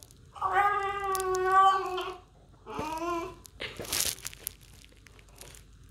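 French bulldog crying in long, steady-pitched wails: one drawn-out cry of nearly two seconds and a shorter one after it, followed by a brief burst of noise about four seconds in.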